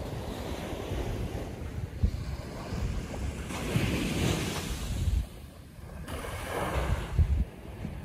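Ocean waves breaking and washing up the beach, with wind buffeting the microphone in low rumbles. The surf swells in two washes, about four seconds in and again near seven seconds, with a brief lull between.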